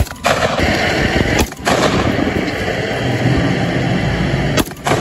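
.223 rifle gunfire, loud, with sharp breaks in the sound about a second and a half in and near the end.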